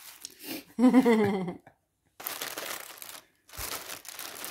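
Plastic bag rustling and crinkling as packages are handled inside it, with a low knock near the end; a brief spoken word comes about a second in.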